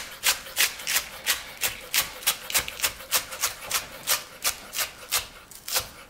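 Chef's knife slicing through a bundle of spring onions and tapping down on a wooden cutting board in a steady rhythm, about three strokes a second.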